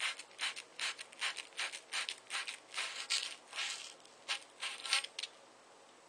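120-grit abrasive cloth rubbed back and forth over the end of a 1/2-inch copper pipe, shining it clean for soldering: quick scratchy strokes about three a second that stop a little after five seconds.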